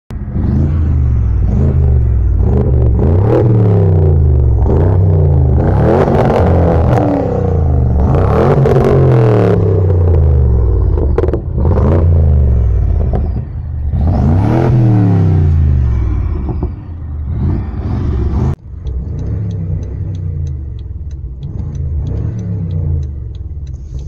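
BMW X5 F15 50i's twin-turbo V8, with custom downpipes and a Supersprint exhaust, revved again and again, its pitch climbing and falling with each blip. Near the end it cuts to a quieter steady idle heard inside the cabin, with the regular ticking of the hazard-light flasher.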